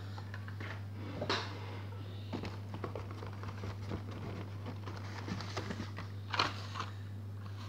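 Cardboard-and-plastic blister-card packaging being handled: scattered light clicks and rustles as the carded toy cars are slid out of the case, over a steady low hum.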